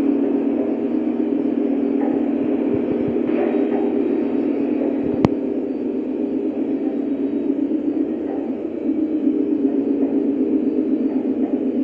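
Lionel Legacy Amtrak F40PH model train running on O-gauge track, a steady rumble with a fast flutter. A single sharp click about five seconds in.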